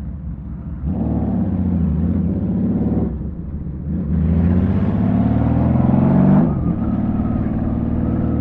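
Honda Valkyrie's flat-six engine through Cobra six-into-six pipes, heard from the rider's helmet. It pulls away and accelerates hard from about a second in, eases at about three seconds for a gear change, and pulls again in the next gear before settling to a steadier run near the end.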